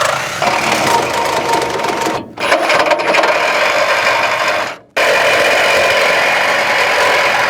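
Reciprocating saw (Milwaukee Sawzall with a carbide blade) cutting through a welded-on metal C-channel. It cuts steadily, stopping briefly about two seconds in and again near five seconds before starting again.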